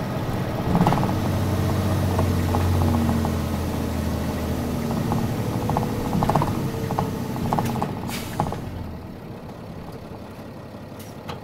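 Cabin sound of a Nissan Diesel Space Runner (KC-RM211GAN) bus: the diesel engine runs under way with interior rattles. About eight seconds in, a brief hiss comes and the engine drops back to a quieter idle, typical of the bus pulling in at a stop.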